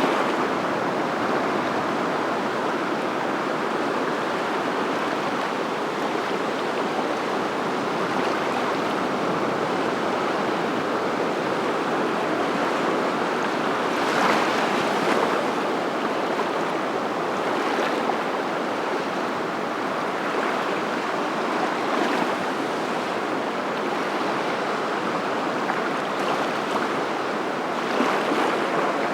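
Steady rushing water, swelling gently every few seconds.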